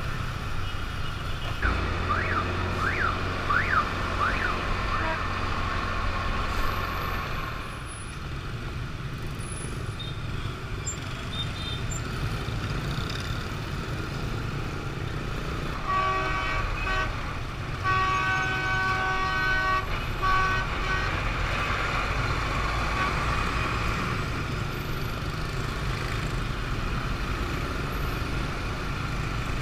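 Steady engine and traffic noise from riding a motor scooter in dense city traffic. Between about 2 and 7 seconds in, a warbling tone sweeps up and down about five times. Around the middle, vehicle horns sound several honks in a row.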